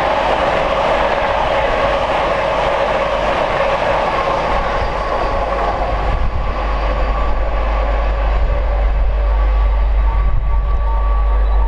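A high-speed LNER Azuma train passing at speed on the near track through the station, making a steady rush of wheel-on-rail and air noise under a low rumble. A thin steady whine sets in about halfway through.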